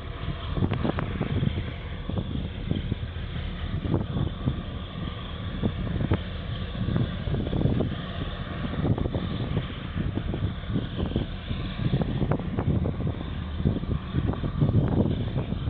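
Wind buffeting the microphone: an uneven low rumble that surges in irregular gusts.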